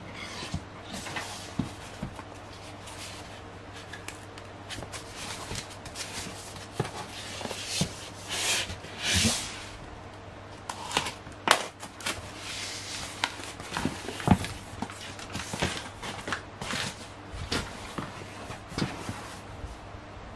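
Hands handling and opening a taped cardboard shipping box: cardboard and packing tape rustling and scraping, with many sharp taps and knocks against the desk.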